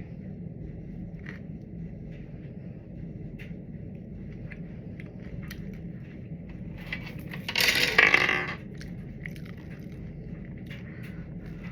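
Close-miked eating sounds: small wet clicks and chewing over a steady low hum. About two-thirds of the way through comes one loud breathy rush, lasting about a second and a half.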